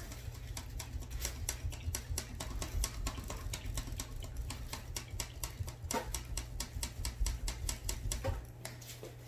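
Paintbrush being rinsed in a water cup: a fast, uneven run of clicks and taps as the brush knocks against the cup, stopping about eight seconds in.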